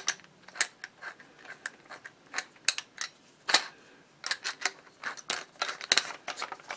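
Irregular clicks, taps and light rattles of small hard parts being handled as a larger bit is fitted to a cordless drill.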